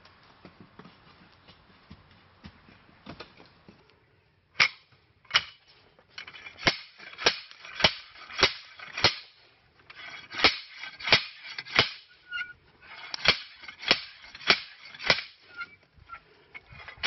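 Sharp metallic knocks with a short ring, in three runs of about two a second, from an iron bar being worked into the glowing front opening of a stone bloomery furnace during an iron smelt.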